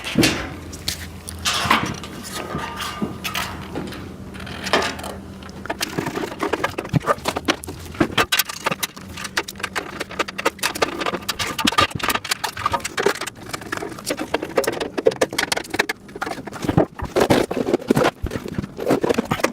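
Quick clicks and rattles of plastic storage bins and rack parts being handled and fitted during assembly. The clicks grow denser partway through, and a low steady hum underneath stops about eight seconds in.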